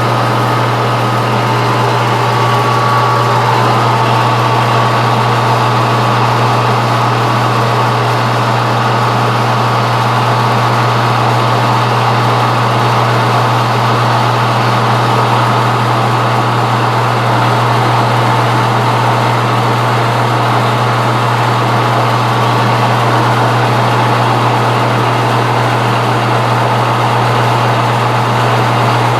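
Metal lathe running steadily at 300 RPM, with a constant motor and drive hum and a steady higher whine.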